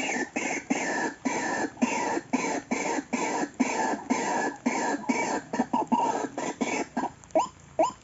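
White-breasted waterhen calling: a fast run of harsh croaking notes, about three a second. Near the end it changes to shorter, separate notes that sweep upward, about two a second.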